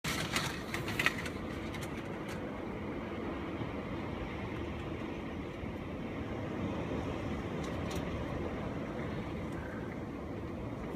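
Strong storm wind blowing across the microphone: a steady low rumbling noise, with a few sharp clicks in the first second.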